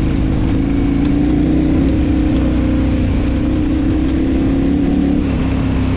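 KTM adventure motorcycle's engine running under way, a steady engine note that dips slightly about five seconds in.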